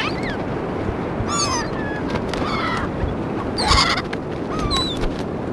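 Several gulls calling in short, overlapping calls that slide up and down in pitch, the loudest about three and a half seconds in, over a steady rushing background.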